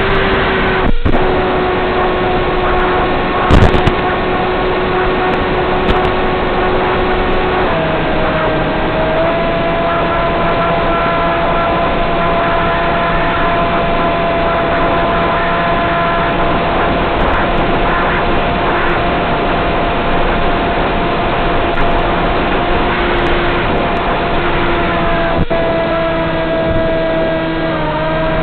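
Electric motor and pusher propeller of a Z84 flying wing running at steady cruise throttle under a constant rush of air noise. The whine's pitch steps up about eight seconds in and shifts again near the end. A short sharp crackle comes about three and a half seconds in.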